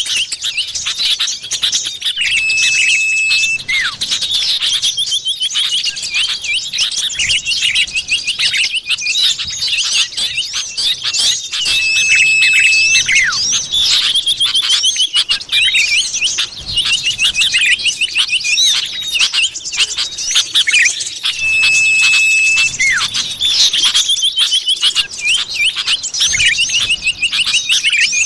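Looped lure recording of common iora (cipoh) calls: dense rapid chirps and trills, with a long level whistle repeating about every nine and a half seconds.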